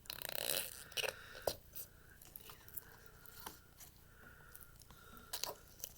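Jello squishing with wet crackles and clicks: a dense cluster at the start, then single clicks scattered irregularly.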